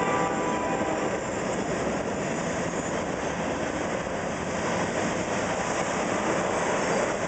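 CSX phosphate freight train's covered hopper cars rolling through a street grade crossing: steady noise of steel wheels on rail. The tail of a train horn blast cuts off right at the start.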